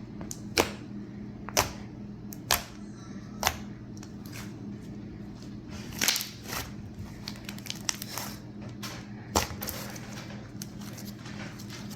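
Butter slime of glue, borax activator and air-dry clay being poked and squished by hand, giving sharp short pops and clicks, about one a second at first, then a few more spaced out.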